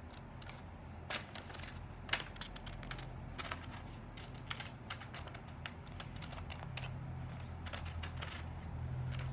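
Small scissors snipping through a sheet of paper in a quick, irregular run of snips, with the paper rustling, over a low steady hum.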